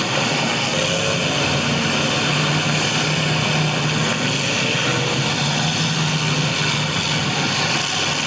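Demolition derby cars' engines running at a steady, low idle-like hum under a wash of broad noise.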